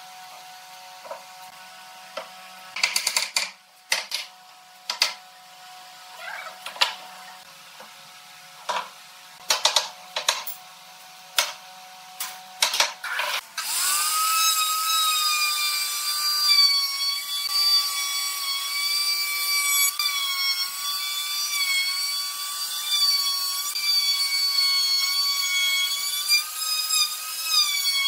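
Scattered wooden knocks and clatter of table parts being handled, then about halfway through a handheld electric router starts and runs with a steady high whine, dipping a little in pitch now and then as its bit cuts along the edge of a wooden table frame.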